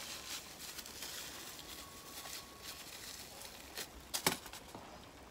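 Thin plastic bag of moringa seeds crinkling faintly and clicking softly as it is handled, with a couple of sharper clicks about four seconds in.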